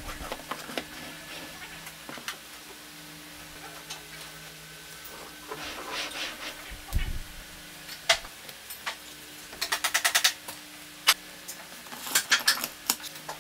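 Wooden jig and tool parts being handled and set down on a workbench: scattered knocks and clicks, a scraping slide about six seconds in, a dull thump about seven seconds in, and quick runs of clicks around ten and twelve seconds in. A faint steady hum lies underneath; no power tool is running.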